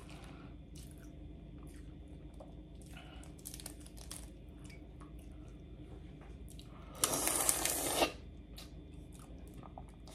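Boiled crawfish being cracked and peeled by hand, with small crackling clicks of shell, and chewing. About seven seconds in comes a loud slurp lasting about a second, as a crawfish is sucked.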